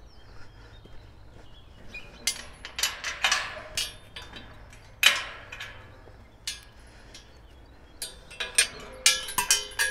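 Metal clinks, knocks and scrapes as the steel front guard of a logging wagon is worked loose and pulled off, with a cluster of quick clanks near the end.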